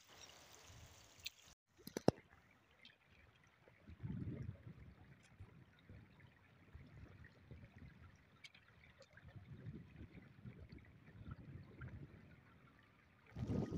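Faint, irregular splashing and sloshing of shallow water as a hooked fish is lifted out and handled into a net bag, coming in short patches.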